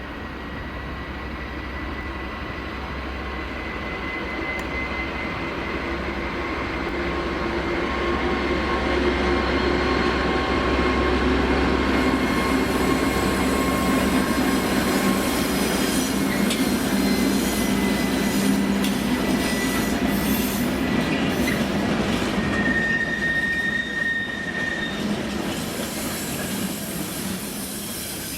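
Freight train rolling past, its wagon wheels squealing steadily with a high-pitched ring and some clatter over the rails. It grows louder toward the middle, then fades.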